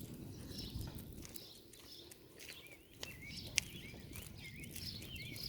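Birds chirping in short, repeated calls over soft footsteps in grass, with one sharp click a little past the middle.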